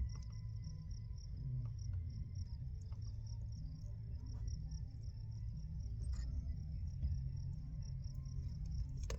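Crickets chirping steadily in a fast, even pulse over a low background rumble, with a few faint small clicks.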